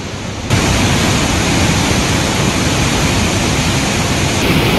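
Floodwater rushing through the raised spillway gates of the Jurala dam, a steady heavy rush of churning water that grows louder about half a second in.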